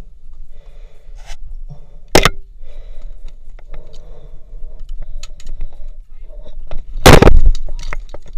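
Action-camera handling noise as it is jostled against rock and a backpack: scattered scrapes and clicks, a sharp knock about two seconds in and a longer, louder knock-and-scrape about seven seconds in.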